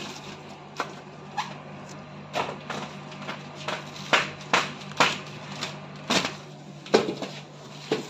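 Irregular knocks and crinkles, about a dozen in all, from handling the plastic-wrapped, polystyrene-packed washing machine, over a faint steady hum.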